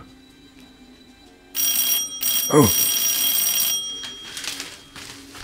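Electric doorbell ringing twice: a short ring, then a longer one of a little over a second, with a low falling sound over the start of the second ring.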